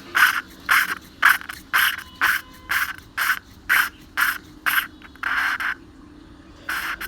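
Valve being lapped into its seat in a Bajaj Discover 135 cylinder head, the valve face grinding against the seat through abrasive lapping paste with an even rasping scrape about twice a second. One longer stroke comes about five seconds in, then a short pause before the strokes resume near the end.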